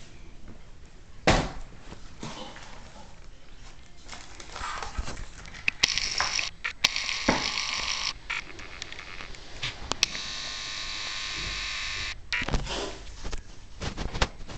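Camera handling noise: scratchy rubbing and rustling on the microphone, with a sharp thump about a second in and two longer stretches of rubbing in the middle.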